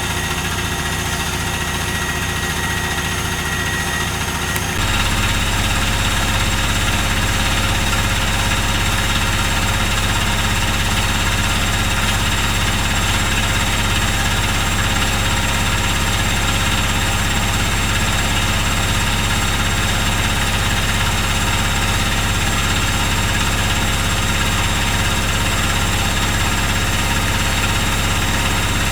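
Privileg Dynamic 4612 washing machine spinning its drum at high speed, set for a 1200 rpm spin, a loud steady drone with vibration. About five seconds in, the spin steps up and the drone grows louder and deeper.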